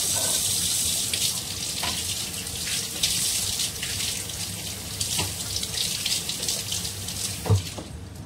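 Kitchen tap running into a sink while vegetables are washed under it, with light knocks of things in the sink. A louder knock comes near the end, and the water shuts off just after.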